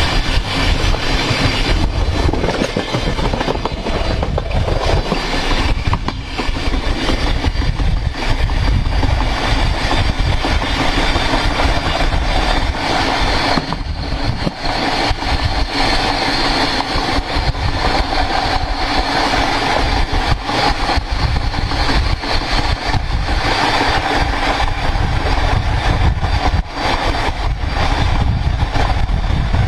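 Steel flanged train wheel rolling along the rail at speed: a loud, steady rolling noise.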